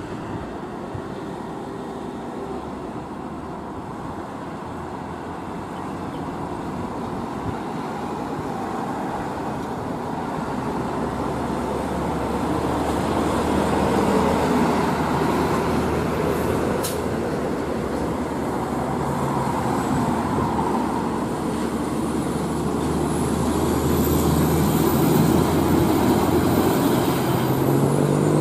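Mercedes-Benz Axor 4928 tractor-trailer's diesel engine pulling away and accelerating, growing steadily louder as it approaches. A single sharp click comes about halfway through. A thin high whine rises in pitch over the last several seconds, then drops off at the end.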